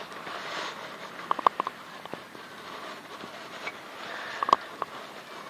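Knife shaving curls from a split stick of firewood to make a feather stick, with two clusters of short, sharp clicks, the first about a second and a half in and the second near the end.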